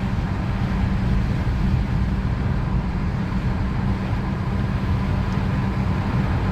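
Steady road and engine noise inside a moving car's cabin: a constant low rumble with a faint steady hum.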